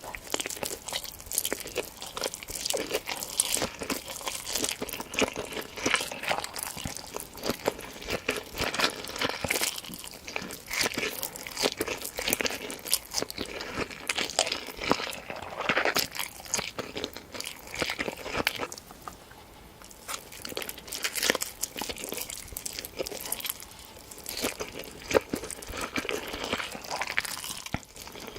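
Close-miked crunchy eating: repeated bites and chewing of crisp food, a dense run of irregular crackling crunches.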